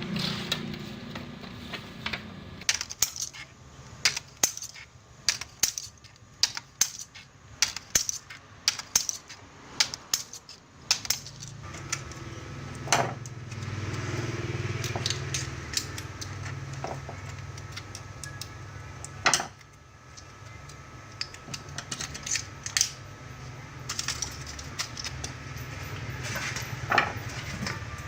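Small metal parts clinking and tapping as they are handled and set down, dense sharp clicks for the first ten seconds or so and sparser after that. A low steady hum runs under them from about eleven seconds in.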